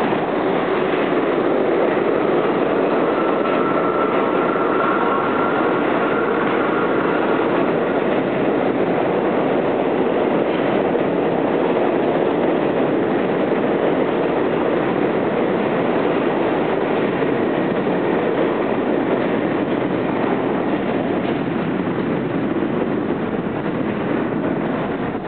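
New York City subway train rumble echoing through an underground station: a steady, loud roar of steel wheels on rail, with a faint high whine a few seconds in.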